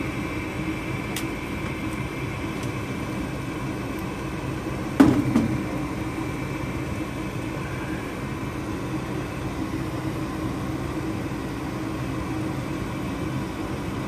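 Goodman gas furnace's draft inducer motor running with a steady hum, with a sharp click about five seconds in. The inducer is running but the furnace is not lighting, which the technician takes for a failed igniter.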